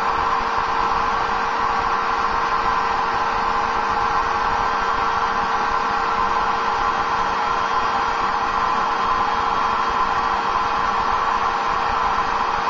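Electric air blower running steadily, forcing air through a flexible hose to inflate a wet down jacket, with a constant hum over the rush of air.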